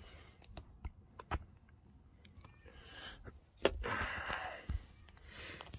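Handling noise: faint scattered clicks and crinkles as a metal tube of glue is squeezed onto the vinyl seam, then a louder rustle a little under four seconds in as the phone is moved.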